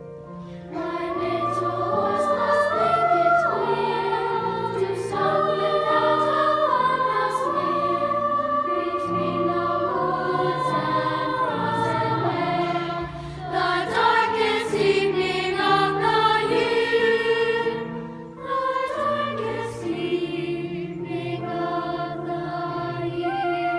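Singing of a holiday tune over instrumental accompaniment, with light bell strikes now and then.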